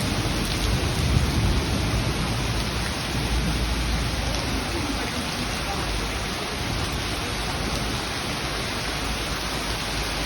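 Steady heavy rain falling, with a low rumble of thunder in the first few seconds that dies away.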